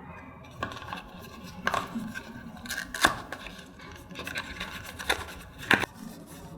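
Cardboard packaging and plastic being handled and opened by hand: a series of sharp clicks and short scrapes with rustling between, the loudest about three seconds in and again near the end.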